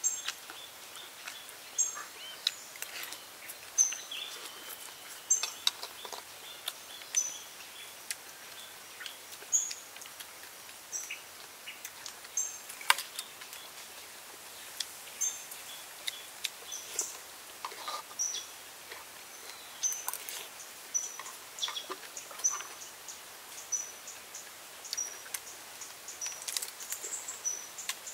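Short high bird chirps repeated about once a second over a quiet outdoor hiss, with scattered sharp clicks and smacks of someone eating.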